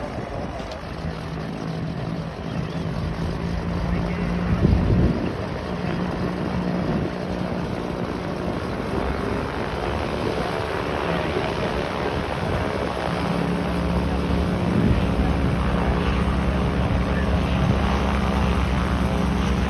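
Steady low drone of an ATR turboprop airliner's propellers on final approach, under wind buffeting the microphone, with a strong gust about five seconds in.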